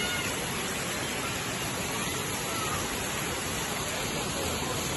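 Water running steadily down a stepped stone cascade, an even rushing of falling water.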